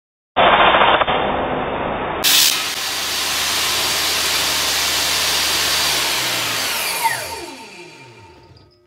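Table saw running, duller for about the first two seconds and then brighter; about seven seconds in the motor is switched off and the blade spins down with a falling whine that fades away.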